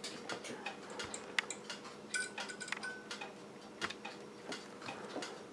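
Faint, irregular clicks and taps from handling a glass halogen bulb in a plastic screw lamp socket, with a brief faint high whine about two seconds in.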